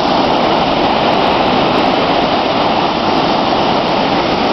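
Floodwater pouring through the open floodgates of the Bearspaw Dam during a river flood: a loud, steady, unbroken rush of water.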